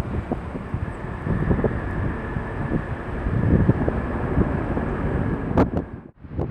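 Wind buffeting the microphone in gusts over the steady run of a jet airliner, with a faint high whine held through it. The sound cuts out about six seconds in.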